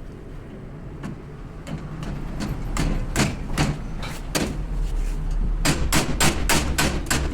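Repeated sharp hammer blows on metal, spaced out at first and then quickening to about four strikes a second near the end, over a low steady rumble.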